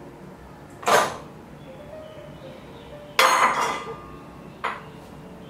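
Glass and stainless steel kitchen bowls being handled: a sharp clink about a second in, a longer ringing clatter about three seconds in, and a lighter knock near the end.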